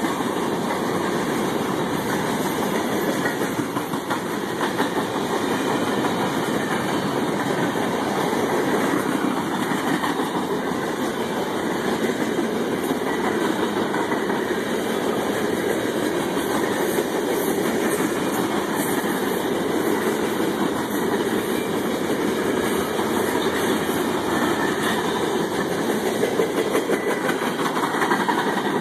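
Freight train cars rolling past at close range: a steady rumble of steel wheels on rail, with scattered sharp clicks.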